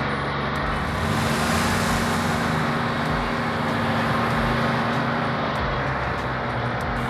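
Car engine sound effect running steadily with a dense rush of road noise, a steady hum joining about a second in, for a cartoon race car speeding along a road.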